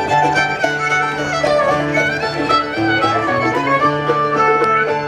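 Live contra dance band playing a fiddle-led dance tune with a steady beat.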